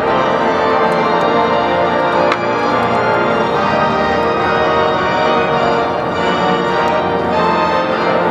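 Cathedral pipe organ playing loud, sustained full chords.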